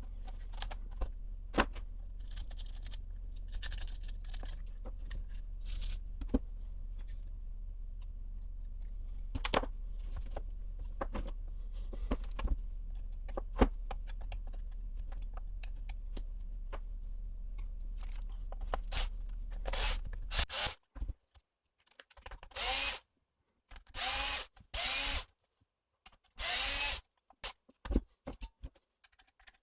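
Small handheld power driver running in four short bursts, each winding up and falling off in pitch, while working screws on an RC truck's rear bulkhead. Before the bursts, a steady low hum with scattered light clicks and knocks.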